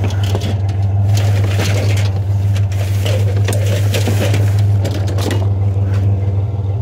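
Junk being rummaged and shifted inside a plastic wheeled trash cart: irregular knocks, scrapes and rustles of metal and plastic. Under it runs the steady low hum of an idling pickup engine.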